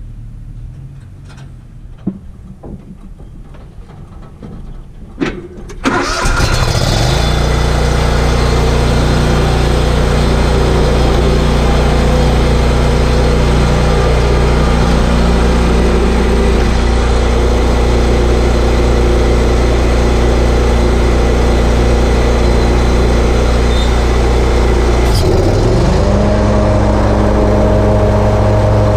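Ferris Z3X zero-turn mower's engine starts about six seconds in, after a few sharp clicks, then runs steadily. Near the end the engine speeds up to a higher, steady pitch.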